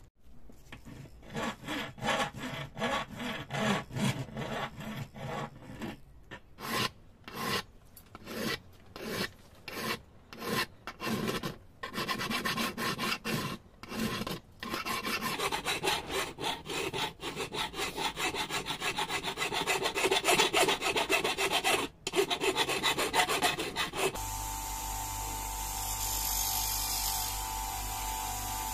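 Hand file rasping back and forth across the rusty metal body of a bubble level clamped in a bench vise, about two strokes a second, then quickening into near-continuous filing. Near the end it changes suddenly to the steady hum of an electric motor spinning an abrasive polishing wheel.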